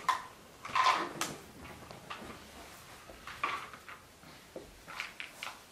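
A small plastic bottle being handled by a baby monkey, knocking and rattling in a few short clatters about a second apart.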